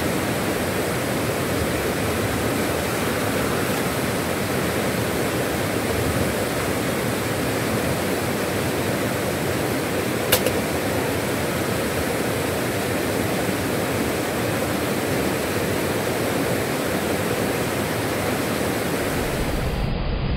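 River whitewater rapids rushing steadily over rocks. One sharp click about halfway through.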